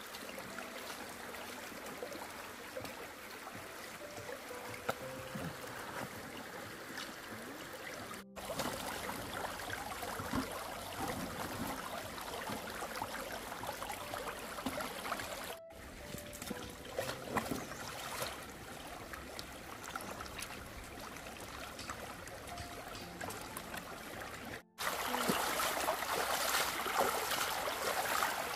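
Shallow mountain stream running over stones, a steady rushing; it cuts out for an instant three times, and near the end it gets louder with splashing as sweet potatoes are rinsed by hand in the water.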